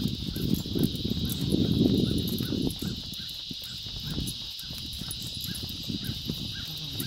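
Steady, high-pitched chorus of insects, with a faint chirp repeating a few times a second, over low rumbling noise that is heaviest in the first three seconds.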